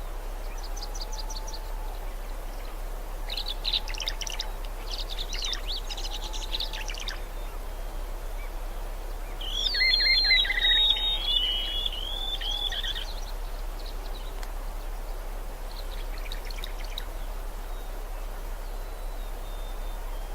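Songbirds singing in short, chattering phrases over a steady background hiss of outdoor ambience. The loudest burst, with a clear whistled note, comes about halfway through, while a fainter, lower call repeats every second or two.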